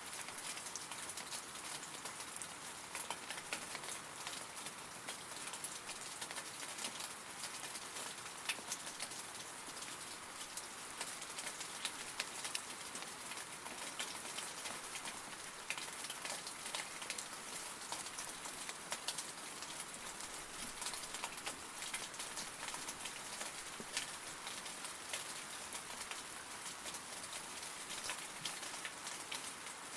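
Steady rain falling, a constant hiss with many individual drops ticking and pattering close by.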